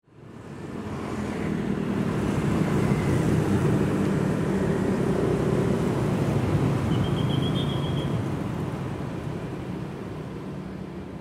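Street traffic ambience: a steady rumble of passing vehicles with some wind on the microphone, fading in over the first second and easing slightly near the end.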